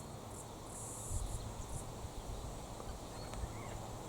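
High-pitched insect chirping in several short bursts that stop about two seconds in, over a steady low rumble of wind on the microphone. A faint short chirp comes near the end.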